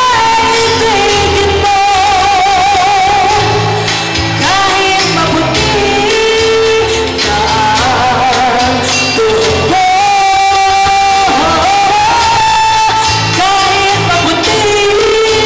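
A woman singing a song into a handheld microphone over accompanying music with a steady beat, her voice amplified and holding notes with vibrato.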